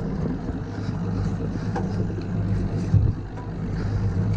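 Evinrude outboard motor running with a steady low hum, over a hiss of wind and water; a single thump about three seconds in.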